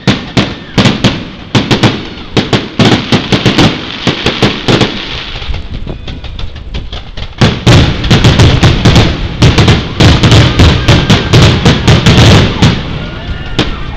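Fireworks display: aerial shells launching and bursting in rapid, repeated bangs and crackles. The bangs thin out for a couple of seconds mid-way, then pile into a dense, loud barrage before easing off near the end.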